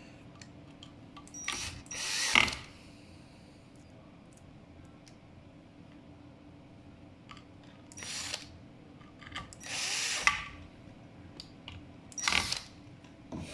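Cordless drill-driver driving in the screws that hold a replacement electric-scooter controller board in place. It runs in five short bursts of under a second each: two near the start, two around the middle and one near the end.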